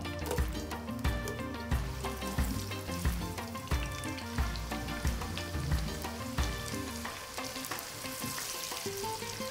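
Sliced red onions sizzling in hot oil in a pot, stirred with a silicone spoon; the sizzle grows stronger near the end.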